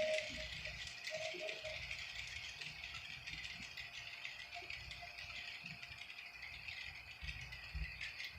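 Steam locomotive sounds played by a Tsunami2 sound decoder through the small speaker of an HO scale New York Central H-10 2-8-2 model: a steady hiss with light rattling.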